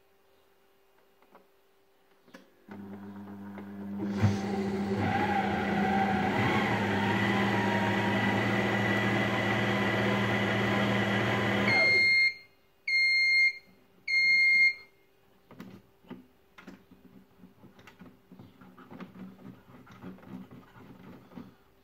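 Taurus Mycook 1.6 kitchen robot's blade motor starts about three seconds in, gets louder a second later, runs steadily for about eight seconds and stops as its timer ends. Three beeps follow, then light clicks of its control buttons being pressed.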